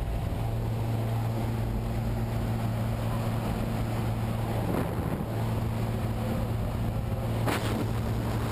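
Small plane's engine and propeller droning steadily inside the cabin, with rushing wind noise. Two brief knocks, one about halfway through and one near the end.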